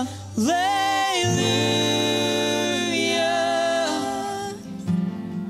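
Worship singers drawing out a long sung "hallelujah" in a slow worship song. The voice rises into the note about half a second in, then holds long notes that step between a few pitches.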